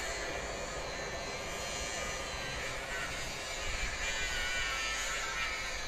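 Class 379 Electrostar electric multiple unit running slowly past, wheels rumbling on the rails under a high electric traction whine that drops in pitch about four seconds in.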